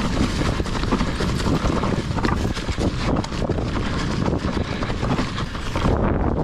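Santa Cruz Megatower full-suspension mountain bike descending a rocky trail covered in dry leaves: tyres crunching over leaves and stones, with the frame and drivetrain rattling and clicking over the bumps. Near the end, wind on the microphone grows louder as the bike picks up speed.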